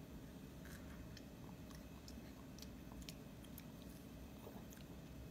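Faint, scattered clicks of a toddler chewing food in his mouth, over a low steady hum.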